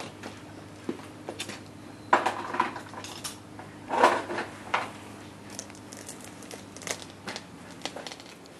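Close rustling and clicking handling noises from a hand stroking a cat's fur, loudest in two short bursts about two and four seconds in, over a faint steady hum.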